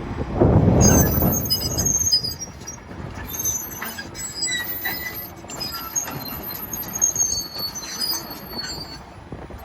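John Deere 350D LC excavator travelling on its steel tracks: the undercarriage squeals and clanks in scattered high metallic squeals and ticks, over a louder low rumble in the first two seconds.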